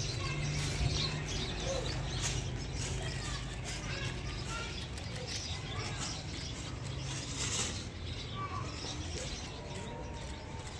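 Outdoor ambience of birds chirping over a steady low hum, with scattered faint clicks.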